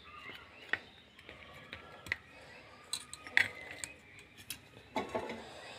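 A steel spatula scraping and tapping in a plastic tiffin box as a soft biscuit mixture is pressed flat, with a few light clicks spread through.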